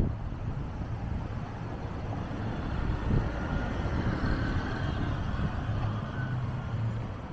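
Street ambience: steady road traffic noise from passing cars, a low rumble with a faint engine whine in the middle.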